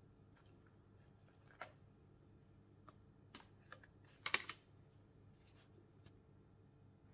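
Faint clicks and crinkles of a clear plastic deli-meat tray being handled as slices are peeled out, with a louder cluster of clicks about four seconds in.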